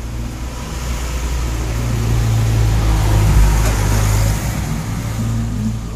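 Street traffic: a steady low engine drone, swelling as a vehicle passes close about three to four seconds in, then easing off.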